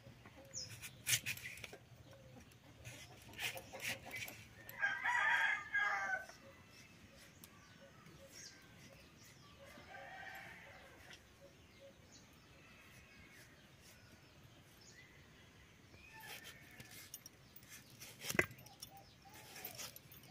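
A rooster crows once about five seconds in, with a second, fainter call about ten seconds in. A few sharp clicks come from vegetables being cut on an upright boti blade; the sharpest is near the end.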